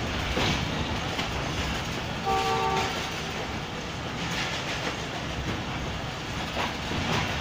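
A diesel-hauled passenger train rolling out at low speed, heard from the side of a coach: steady running noise with wheels clacking over the rail joints. A short multi-tone locomotive horn sounds once, about two seconds in, for under a second.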